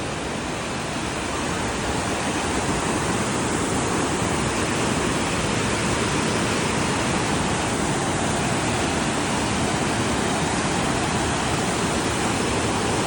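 Bridalveil Fall's water rushing down and through its creek: a dense, even rush of water. It grows a little louder over the first couple of seconds.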